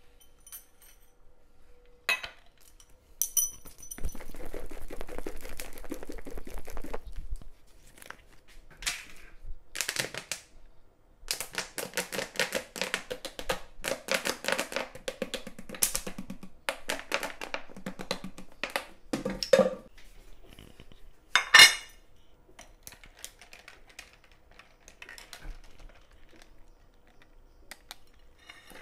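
Kitchen utensils clinking and scraping against dishes. There is a sharp ringing clink about three seconds in, a long stretch of quick clicking and scraping in the middle, and one loud knock a little past twenty seconds.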